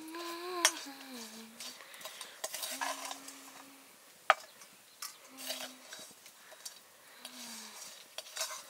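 A steel spoon scraping and clinking against a metal wok as curry is scooped out and served, with two sharp clinks, the louder one about four seconds in. A few short low hums come in between.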